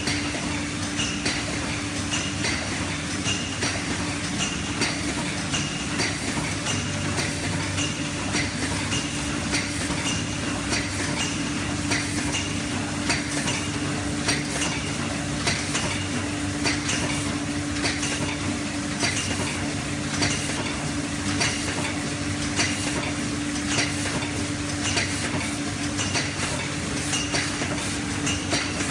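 Automatic aluminum foil loaf pan production line running: a steady hum under regular, repeating metallic clicks and clatter from the pan machine's moving parts and the foil pans.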